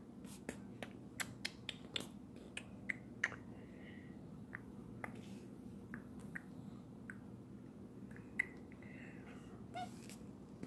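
A series of sharp, irregularly spaced clicks, about a dozen in all, with a couple of faint high chirps between them.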